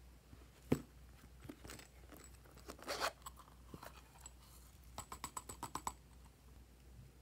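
Hard plastic toy case being handled and opened: a sharp click about a second in, a scraping crunch around three seconds, then a quick run of about eight light clicks about five seconds in.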